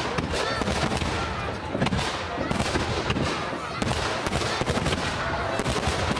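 Aerial firework shells launching and bursting in quick succession: a dense, unbroken run of sharp bangs over a continuous low rumble.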